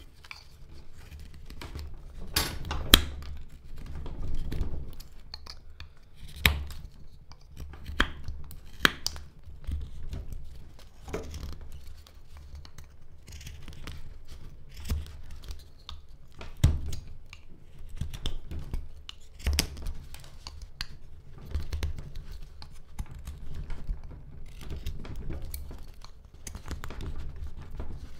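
Whittling knife slicing and paring chips off a stick of hard black locust (Robinia) wood: irregular scraping cuts with sharp clicks as chips break away, the loudest about three seconds in, over a low steady hum.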